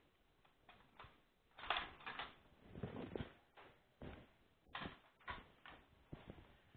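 Faint, scattered knocks and clatter of a kitchen oven door being opened and a stainless steel baking pan being lifted off a wooden counter.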